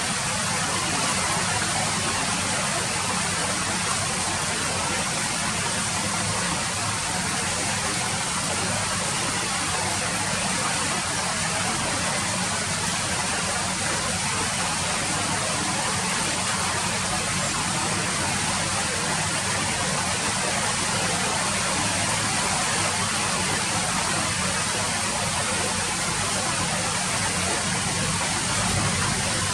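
Steady rain falling, an even, unbroken hiss with a low rumble underneath.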